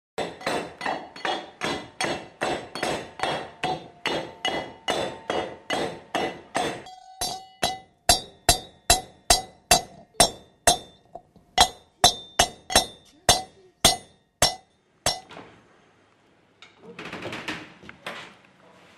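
A pestle pounding in a metal mortar (a mehras) with steady, even strikes, about three a second. From about seven seconds the strikes come a little slower and ring out with a clear metallic tone. They stop at about fifteen seconds, and a brief rattle of handling follows near the end.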